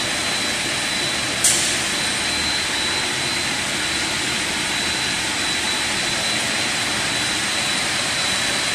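Puffed-snack production line machinery, its centrifugal blower fans and conveyors, running with a steady, loud noise and a thin high whine over it. There is one sharp click about a second and a half in.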